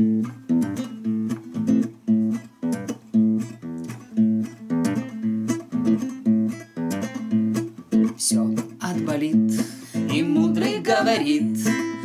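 Nylon-string classical guitar playing a rhythmic accompaniment of chord strokes as a song's introduction. Singing voices join in near the end.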